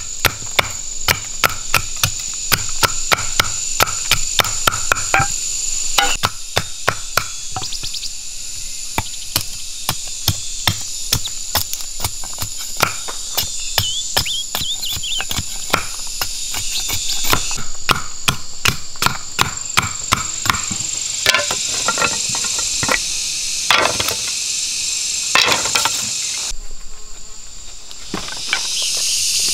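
Machete strokes chopping and shaving bamboo stakes to sharpen them into points: a long run of quick, sharp knocks. A steady high buzz of insects runs underneath.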